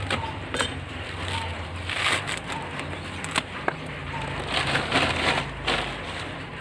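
Dry coconut husk being torn apart by hand and its fibres pushed into a plastic planting bag: scratchy tearing and crackling plastic rustles in several short bursts, with a few sharp clicks, over a low steady hum.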